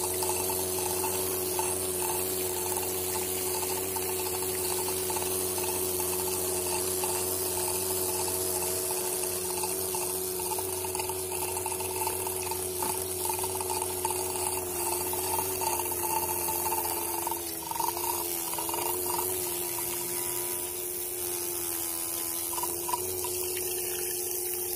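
Homemade mini water pump driven by a 12-volt DC motor, running steadily: a high, even motor whine over the splashing of the water jet shooting from its outlet pipe.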